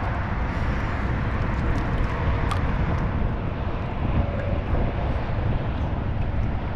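Wind buffeting the microphone in an open rowing shell: a steady, uneven low rumble with a few faint clicks.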